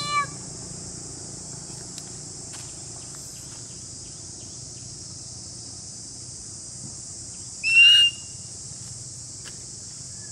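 Steady high-pitched drone of insects in the surrounding vegetation, with one short, loud whistle-like call about eight seconds in.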